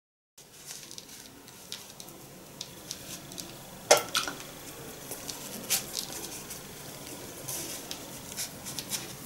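Sweet bean paste being scraped from a small fine-mesh strainer: soft scraping and light clicks of the strainer and utensils, with one sharp clink about four seconds in and a smaller one near six.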